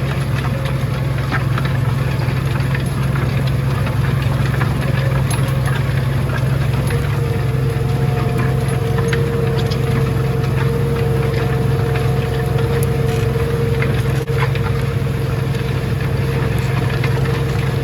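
Tractor engine running steadily while pulling a plough through a field, a deep even hum with a faint steady whine joining about seven seconds in.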